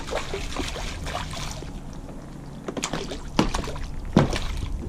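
A small sheepshead splashing at the water's surface as it is reeled in on a spinning rod, followed by a few sharp knocks in the second half as it comes alongside the kayak.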